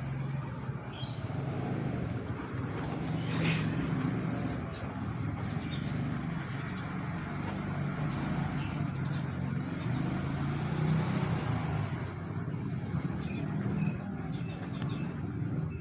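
A steady low motor hum under a haze of background noise, with no distinct events.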